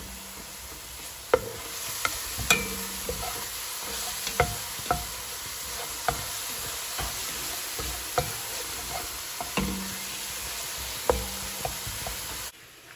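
Minced onion, garlic and fresh ginger sizzling in hot oil in a nonstick pan as a spatula stirs them, with irregular taps and scrapes of the spatula against the pan. The sizzle cuts off suddenly near the end.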